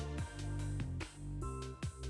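Background music: an instrumental track with a bass line and a steady drum beat.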